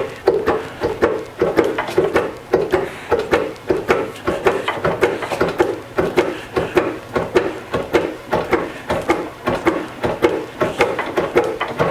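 Wooden treadle lathe being pedaled: the foot pedal, linkage arm and offset crank block knock and rub in a steady rhythm of about three knocks a second. The 24-inch treadle wheel spins at about 104 revolutions a minute, its metal rod axle turning in bare wood without bearings.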